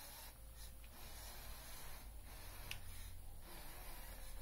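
Faint whir of the LEGO Power Functions electric motors as the remote-control Technic truck drives on carpet, over a low rumble, with a single light click past halfway.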